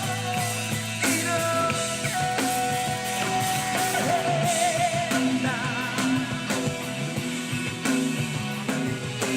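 Rock band playing live, with drums and guitars under a long held melody note that wavers for a moment near the middle.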